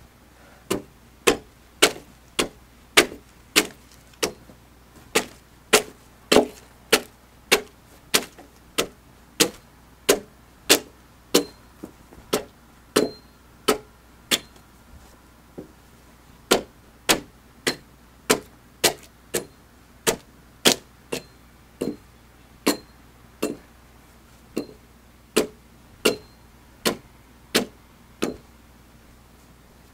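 Axe chopping into a round timber, hewing a flat face along the log: sharp, evenly spaced strikes about three every two seconds, with a short pause about halfway through.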